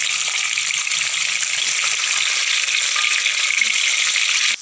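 Long bean and carrot strips deep-frying in a pan of hot oil: a loud, steady sizzle.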